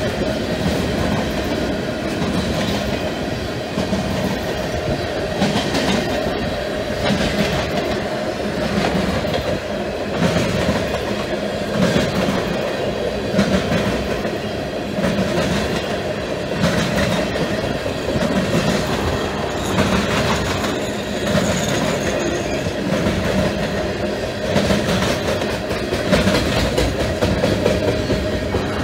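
Freight train of loaded tank cars rolling past close by: steady rumble of wheels on rail with a regular clickety-clack as the trucks cross rail joints, and a steady ringing tone from the wheels underneath.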